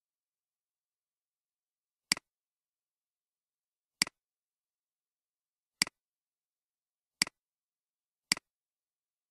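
Five sharp computer-mouse button clicks, spaced one to two seconds apart, with dead silence between them.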